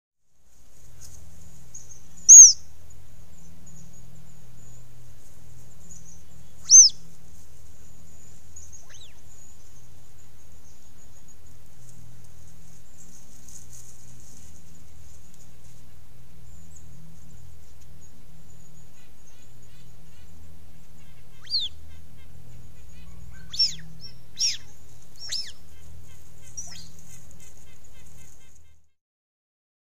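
Mountain lion kittens chirping: short, piercing high whistles that drop in pitch. Two loud chirps a few seconds apart, then a run of four about two-thirds of the way through, over a steady low background hum.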